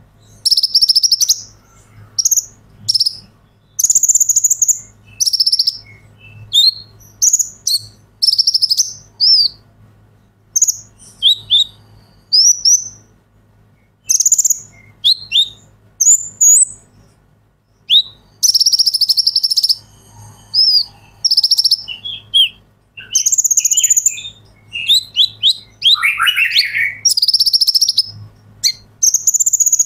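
Male Van Hasselt's sunbird (kolibri ninja) singing hard: a run of high, fast-trilled phrases, mostly under a second each with short gaps, and a longer trill about two-thirds of the way through. A faint steady electrical hum runs underneath.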